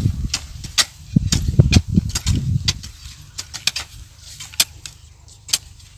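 Metal hand hoes chopping and scraping into dry soil: irregular sharp strikes, several a second, with a low rumble under the first half.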